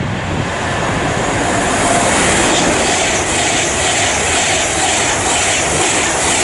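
Class 390 Pendolino electric train passing through the station at speed. The rushing noise builds over the first two seconds, then comes a run of evenly spaced clacks from its wheels crossing rail joints.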